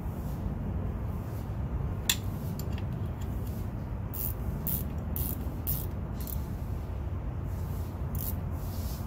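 Hand ratchet wrench worked in short strokes on a bolt in an outboard's lower unit, each back-swing giving a brief zipping ratchet click, several in quick succession from about four seconds in and again near the end. A single sharp click about two seconds in, over a steady low hum.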